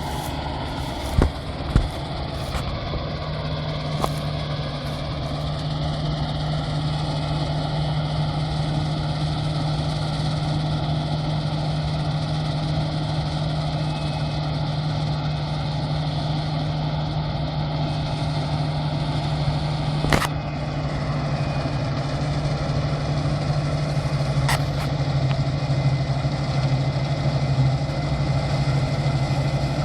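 Claas Dominator 88 combine harvester running steadily, its diesel engine and machinery giving an even drone. A few sharp clicks come about a second in and again about twenty seconds in.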